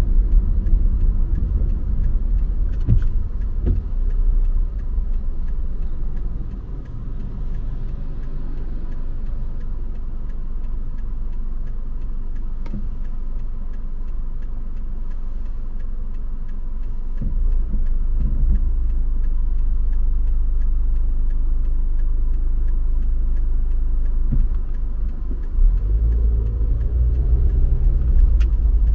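Car driving along the road, a steady low rumble of engine and tyres. Near the end the engine note rises as the car speeds up.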